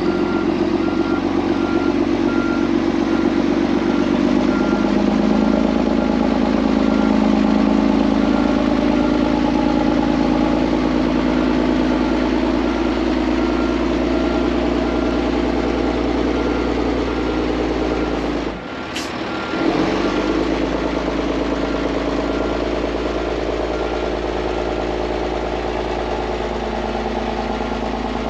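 Heavy diesel machinery engine running steadily and briefly working harder around five to eight seconds in, with a backup alarm beeping steadily throughout. About two-thirds of the way through there is a brief dropout and a click.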